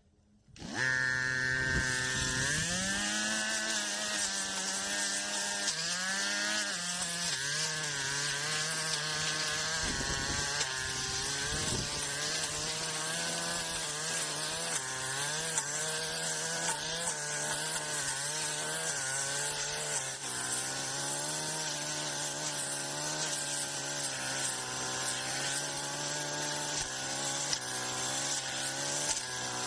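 Brush cutter engine starting up about a second in and then running fast, its pitch rising and dipping as the blade works through grass.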